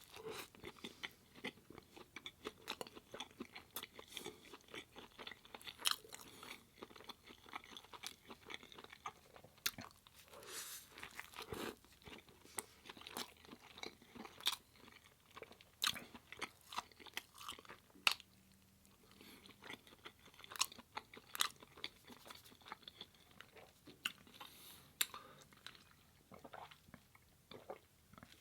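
Close-up eating sounds: a person chewing and crunching mouthfuls of food in quick, irregular bites, pausing briefly about two-thirds of the way through.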